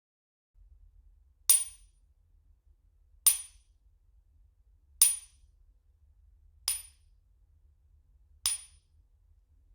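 Five single hammer strikes, evenly spaced about 1.7 seconds apart, each a sharp hit with a short high ring that dies away quickly.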